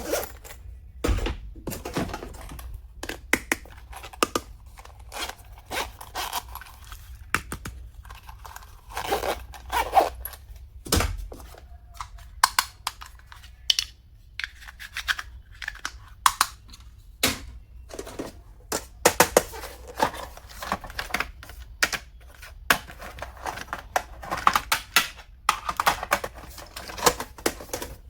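Stationery being unpacked by hand: packaging rustling and tearing, with many irregular small clicks and taps as plastic items are handled.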